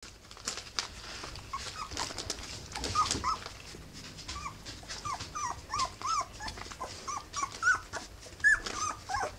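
Three-week-old rough collie puppies squeaking and whimpering: many short, high, arched squeals one after another, with scattered soft clicks from movement on the bedding.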